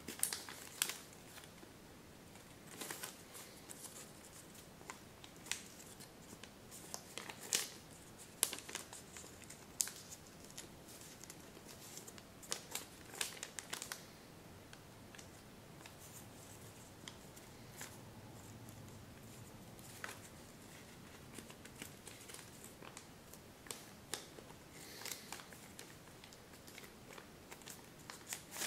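Kami origami paper rustling and crinkling as it is folded and creased by hand, in irregular clusters of short crackles with a quieter stretch past the middle.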